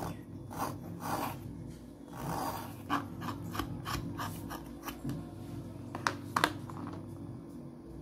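Craft knife blade scraping and shaving a white slate pencil: irregular rasping scrapes and crisp little crackles as chalky flakes break off. Two sharp clicks about six seconds in are the loudest sounds.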